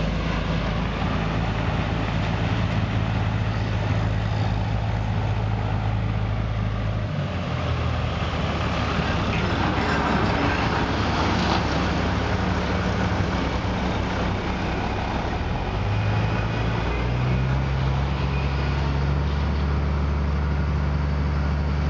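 A motor vehicle's engine running steadily over a rushing noise. Its low hum drops in pitch about seven seconds in and rises again about sixteen seconds in.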